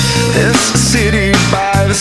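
Background rock music: a loud band mix with drums, distorted guitars and a sung vocal line.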